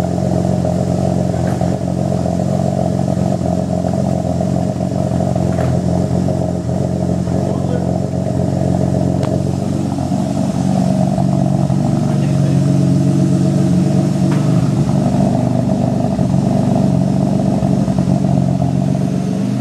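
BMW E36 M3's S52 straight-six idling after a cold start, heard through a B&B Performance cat-back exhaust at the twin tailpipes: a steady exhaust drone that grows slightly louder about halfway through.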